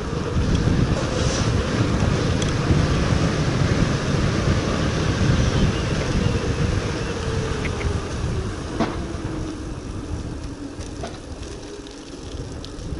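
Wind buffeting the microphone: a steady rumbling rush that eases off near the end, with a faint steady hum underneath and a single click about nine seconds in.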